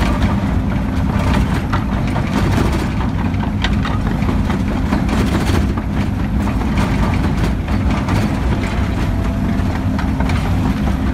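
John Deere 330 excavator's diesel engine running steadily, heard from inside the cab, with occasional light clicks.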